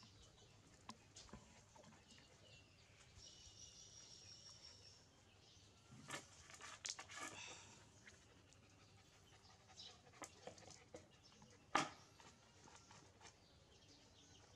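Dogs licking and nosing at an empty plastic plate on a concrete floor: faint scattered clicks and scrapes, with one sharp knock near the end, and a dog panting lightly.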